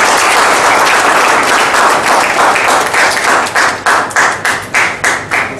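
Audience applauding, the applause thinning out into a few separate claps and fading away near the end.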